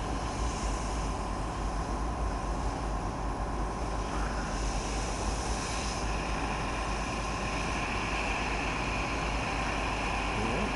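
Steady engine drone with a rushing hiss: a fire engine running its pump while crews lay foam on the burning car.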